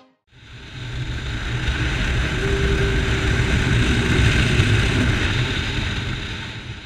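A motorcycle passing by: a low engine rumble and road noise that swell over about four seconds and then fade, cut off abruptly at the end.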